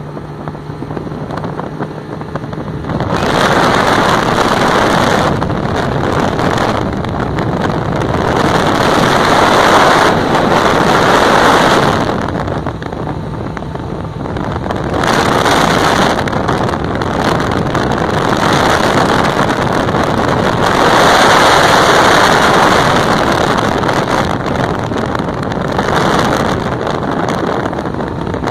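Wind buffeting a phone microphone on a moving motorboat, swelling and easing in gusts every few seconds, with the boat's motor running underneath.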